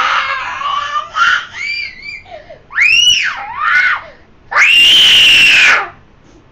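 A young boy crying hard in a tantrum: continuous wailing, then short high cries that rise and fall in pitch, and one long, loud high-pitched scream about five seconds in.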